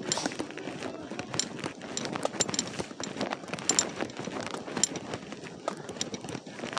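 Footsteps of a person running in boots: a quick, uneven patter of footfalls with small knocks and rattles.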